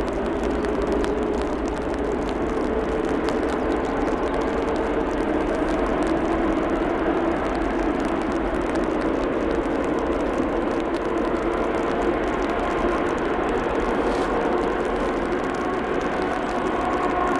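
Airbus A380's four Rolls-Royce Trent 900 jet engines running at taxi power as the airliner taxis past: a steady jet whine with several humming tones that drift slowly in pitch.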